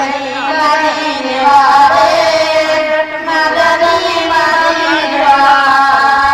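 Girls' voices singing a devotional naat together into microphones, a slow melody with long held notes that bend in pitch.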